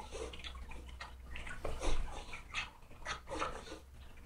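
A small dog making a run of short, irregular sounds, a few a second.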